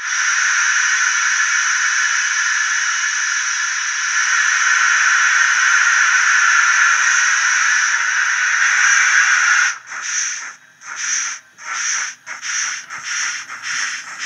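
Model steam locomotive sound from a DCC sound decoder playing a Wheeltappers A5 tank engine sound file through a small tablet speaker. A loud, steady steam hiss starts suddenly and holds for nearly ten seconds. It then breaks into exhaust chuffs that quicken as the engine gets under way.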